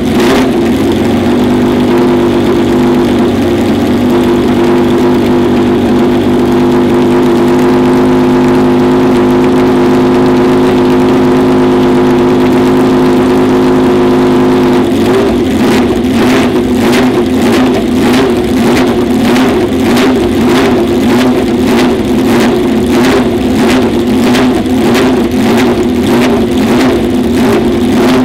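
Ferrari 312PB's 3.0-litre flat-12 racing engine running loudly while it is warmed up. It holds a steady engine speed for about the first half, then turns rough and uneven, surging about twice a second.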